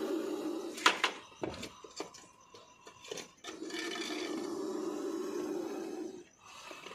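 A few sharp knocks and clatters, as of hard objects being handled, between two stretches of steady hissing noise.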